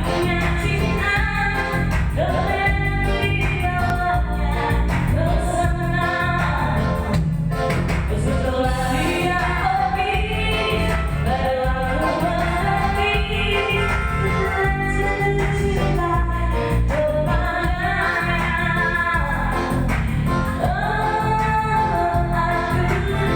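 A woman singing a melodic song over a band backing with heavy bass and a steady beat.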